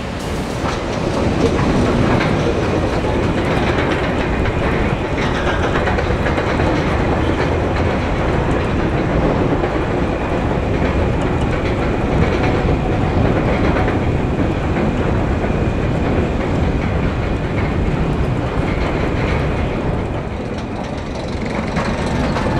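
Dive roller coaster train climbing a chain lift hill: a steady rattle and clacking of the lift chain and track, easing off briefly near the end as the train levels out at the top.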